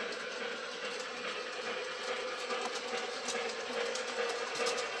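Lionmaster Southern Pacific cab-forward model locomotive and its K-Line ore cars running fast on the layout track: a steady whir of motor and wheels with a rattling clatter, and a quick run of clicks near the end.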